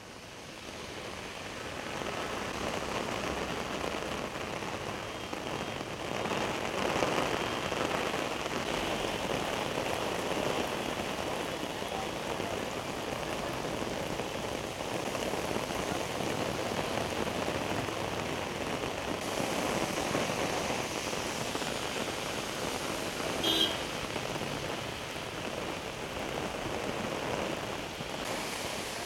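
Heavy rain falling steadily on a wet road and pavement, a continuous even hiss that fades in over the first couple of seconds. A single brief sharp sound stands out about three-quarters of the way through.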